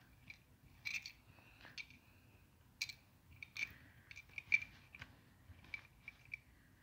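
Irregular light plastic clicks and scrapes from working a Lego Technic excavator model's gears and bucket by hand.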